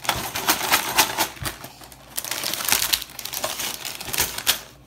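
Plastic bags of Lego pieces crinkling and rattling as they are shaken and tipped out of the cardboard set box: a quick, uneven run of clicks and rustles.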